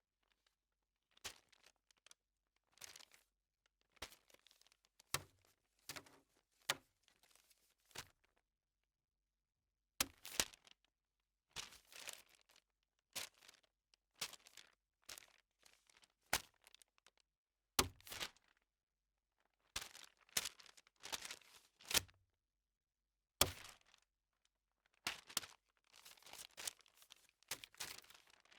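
Sheets of paper being handled: a long series of separate short crinkles and crisp snaps, about one or two a second, with silent gaps between them.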